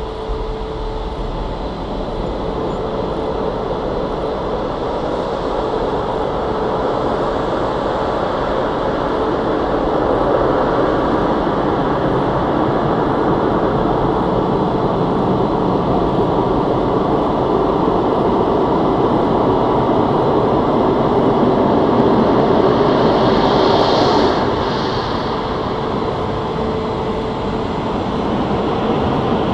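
Aquatus Prime touchless car wash machinery in operation: a loud, steady rushing noise with a faint motor hum that builds slowly. About 24 seconds in there is a brief higher hiss, after which it drops and rises again near the end.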